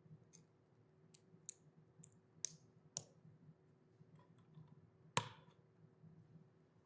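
Lego plastic pieces clicking and knocking as they are handled and pressed together: about six sharp, irregular clicks, the loudest a little after five seconds in.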